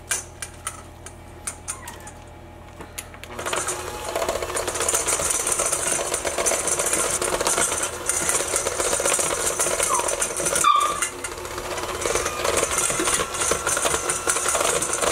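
A spatula clicks and scrapes against a stainless steel mixing bowl for about three seconds, then an electric hand mixer starts and runs steadily, its beaters churning a cream cheese and egg mixture against the bowl.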